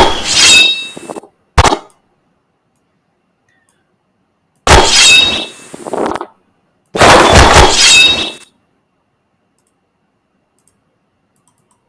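Sound effect of a blade chop: a heavy hit with a bright metallic ring and a crashing, breaking tail, heard three times, with a short sharp hit between the first two.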